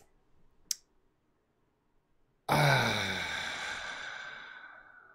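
A man's long voiced sigh that starts suddenly, falls in pitch and fades over about two and a half seconds, after a single faint click about a second earlier.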